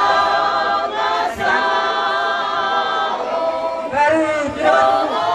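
A group of women singing together unaccompanied, holding long notes, with a new sung phrase starting about four seconds in.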